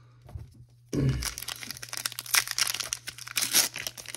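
Foil wrapper of a Pokémon card booster pack crinkling and tearing as it is pulled open, starting about a second in.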